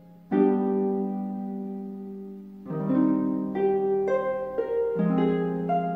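Slow background music of plucked string notes: a chord a moment in that rings and fades, then a string of single notes, and another chord near the end.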